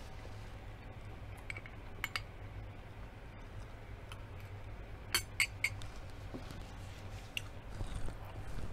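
Metal spoon clinking against a small glass bowl: a few light clinks, then three sharp ones close together about five seconds in, and one more later, over a steady low hum.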